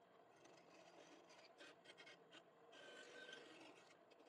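Near silence: room tone with faint, scattered scratching and rubbing sounds.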